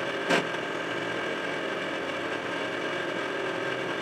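Tormach 8L CNC lathe running steadily, its spindle turning an aluminum bar while the tool rounds off the bar's end under flood coolant. A brief sharp click about a third of a second in.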